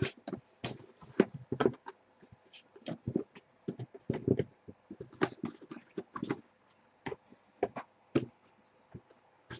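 Hands handling a case of trading-card boxes and its cardboard packaging, with irregular taps, knocks and short rustles.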